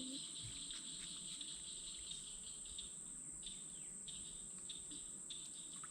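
Crickets and other insects calling: a continuous high-pitched trill, with a lower chirping that repeats a few times a second from about halfway through.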